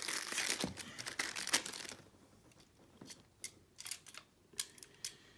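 Packaging crinkling and tearing as it is pulled open by hand to free a pair of kitchen tongs, for about two seconds, followed by a few sharp separate clicks.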